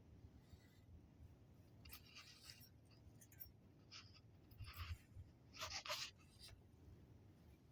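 Near silence with a faint low rumble and a few soft, brief scratchy rustles.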